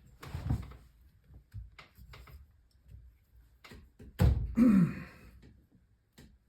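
Scattered light knocks and clicks, then a heavy thump about four seconds in, followed at once by a short sound falling in pitch.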